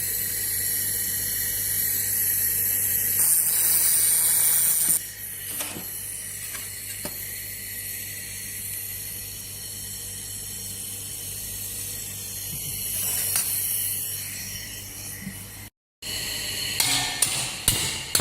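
Handheld fiber laser welding machine running with a steady hum and a high hiss, the hiss getting louder for a couple of seconds about three seconds in. Near the end, after a short break, a few sharp metallic knocks.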